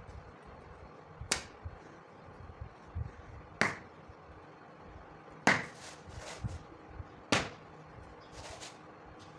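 Kinetic sand being cut, with four sharp chopping strikes of the blade about two seconds apart and a few fainter taps between them.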